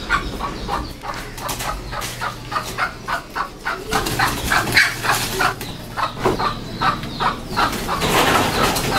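Chickens clucking in a quick run of short repeated clucks, about three a second. Near the end a broad rustling noise rises under the clucks.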